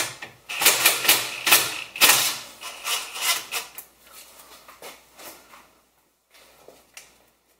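Cordless drill-driver run in a series of short bursts with clicks and rattles, undoing the nut on the 12-volt battery's positive cable. The bursts are loudest in the first four seconds, then give way to softer scattered clicks.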